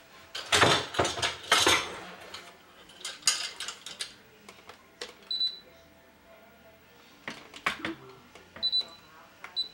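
An RC helicopter transmitter handled and set down on a stone countertop: a clatter of knocks and switch clicks. A few short high beeps follow from about five seconds in, each a single beep a second or more apart.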